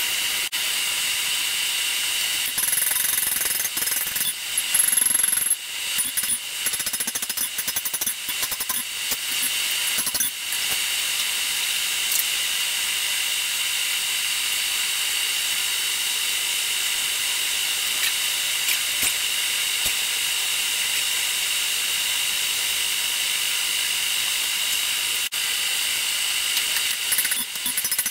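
Steady whooshing hiss of an electric blower fan running in a blacksmith's shop, with some irregular clattering a few seconds in. Near the end, hammering of the hot blade on the anvil starts.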